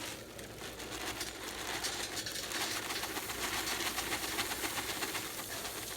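Rice frying in oil and butter in a hot wok, sizzling and crackling steadily as mixed vegetables go in, a little louder from about halfway through.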